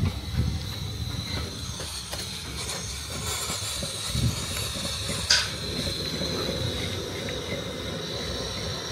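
Steady hissing with a faint, steady high tone and irregular low bumping, broken by one sharp knock about five seconds in.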